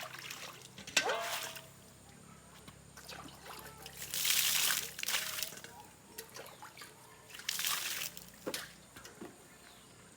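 Water splashing and pouring in three bursts, the longest and loudest about four seconds in.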